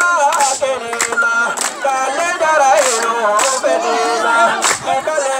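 Voices singing a goumera dance song in a wavering melody, with sharp percussive hits about once a second.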